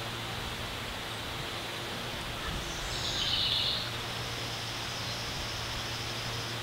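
Outdoor lakeside ambience: a steady hiss of wind and leaves with a low steady hum underneath, and a bird giving one short chirping call about three seconds in.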